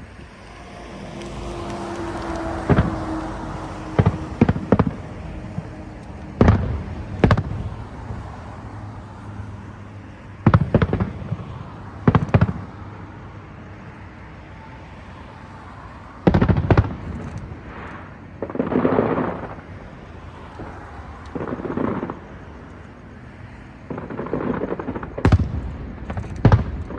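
Aerial fireworks shells bursting overhead: about a dozen sharp booms at uneven intervals, with several longer crackling swells between them.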